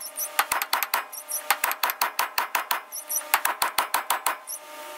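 Rapid hammer blows on steel, about five or six a second, each with a short metallic ring: a big hammer knocking at a driveshaft yoke jammed in a 4L70E transmission's tail shaft to drive it out.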